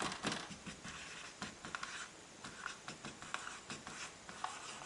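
Dry-erase marker writing on a whiteboard: a run of short, quiet scratching strokes as letters are drawn.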